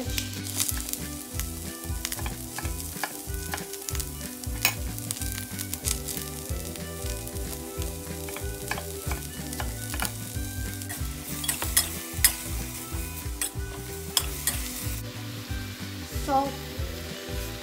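Vegetables sizzling and frying in a hot wok over a gas burner. Scattered sharp knocks come from a knife cutting cabbage on a wooden board and from utensils against the pan.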